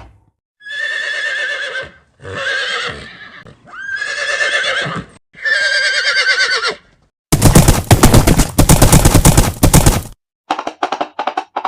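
Made-up horse sound effects: four whinnies in a row, each about a second and a half long with a quavering pitch. They are followed by about three seconds of rapid, loud hoof clatter, then a string of separate short hoof clops near the end.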